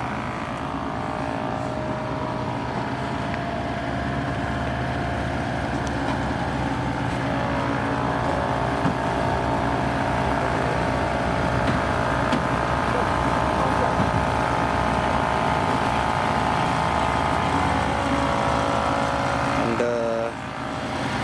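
An engine running steadily at a constant speed, a bit louder after the first few seconds, with a brief drop near the end.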